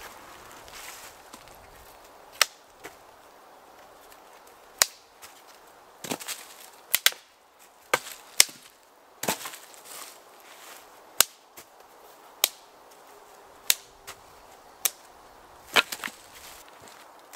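Dry dead sticks snapped by hand into kindling: about fifteen sharp cracks at irregular intervals, roughly one a second.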